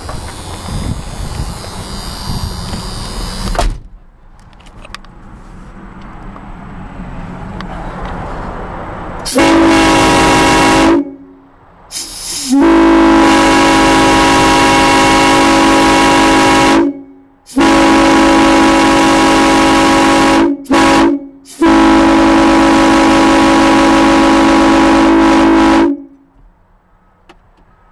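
Nathan Airchime M5 five-chime locomotive air horn sounding a loud, steady chord in five blasts. A short blast comes about nine seconds in, then three long blasts of several seconds each, with a quick toot between the last two. Several seconds of low noise come before the first blast.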